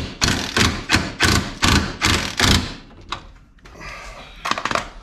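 Cordless Makita impact gun fired in short bursts, about three a second, doing up the lower bolt of a new coilover shock through the suspension arm. The bursts stop about two and a half seconds in.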